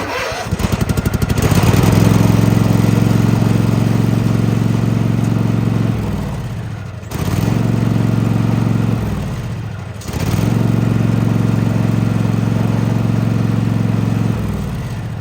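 Riding lawn mower engine starting and running steadily for a few seconds, then winding down and dying, three times in a row. The repeated stalling is the symptom of a bad relay.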